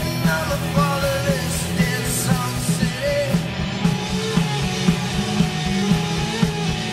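Rock band playing live: electric guitars over a steady beat, with a sung vocal line.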